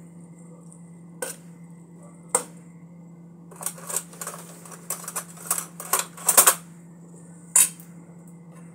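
Metal ladle clinking and scraping against a large metal pan while pressing dry rice vermicelli (bihon) into the broth: sharp clicks and crackles, a couple spaced out at first, then a dense run in the middle, and a last loud click near the end. A steady low hum runs underneath.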